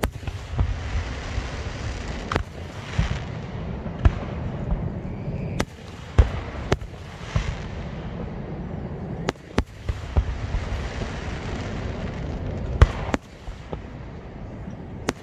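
Aerial fireworks display: a rapid barrage of sharp bangs, one after another, over continuous crackling and low rumble. The loudest bang comes about 13 seconds in, after which the crackle thins out.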